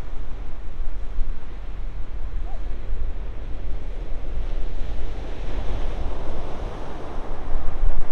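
Ocean surf breaking on a beach, with wind buffeting the microphone in a heavy low rumble; the wash of the waves swells louder about five seconds in.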